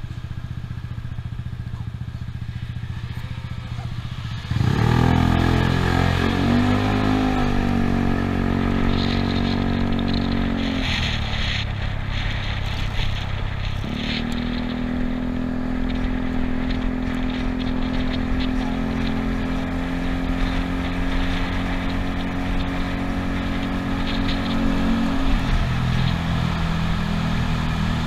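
Yamaha Cygnus scooter's 125 cc single-cylinder engine ticking over, then pulling away hard about four seconds in with a rising note. The note falls back briefly around ten seconds, then holds steady at cruising speed.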